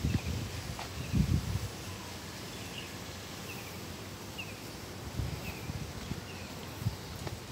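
Footsteps of a person walking on a paved path: a few dull thuds, the loudest at the start and about a second in. Short high chirps repeat about once a second in the background.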